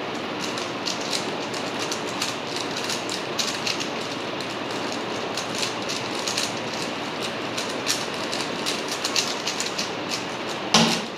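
Plastic Rubik's cube being turned rapidly: a continuous dense rattle of clicking layers as it is solved against the clock.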